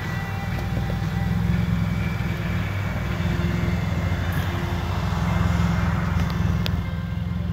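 Steady low engine hum of a car running at idle, heard from inside the car, with the noise of passing traffic swelling around the middle.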